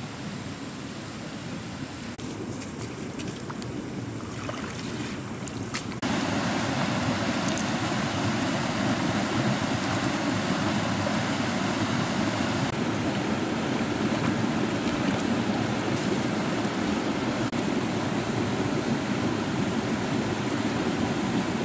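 Fast-flowing, muddy river rushing over shallow rapids: a steady rush of water that jumps louder about six seconds in.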